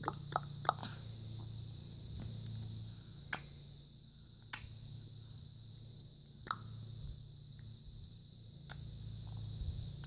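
Repeated sharp click noises: three quick clicks in a row at the start, then single clicks every one to two seconds, over a steady low hum.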